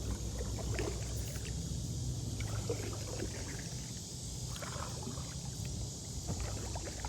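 Kayak paddle working the river water: soft, irregular splashes and drips off the blade, over a steady high hiss.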